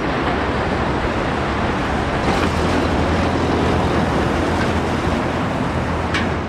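Steady rumbling vehicle noise, like a truck running, that starts suddenly and cuts off suddenly about six and a half seconds later.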